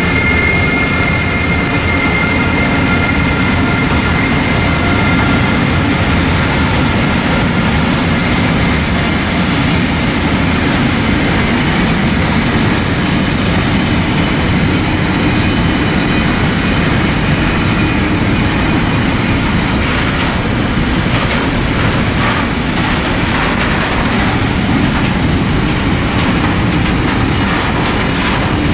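Container freight train's loaded flat wagons rolling past close by: a steady heavy rumble of steel wheels on the rails, with a thin high tone over it in the first few seconds that fades away.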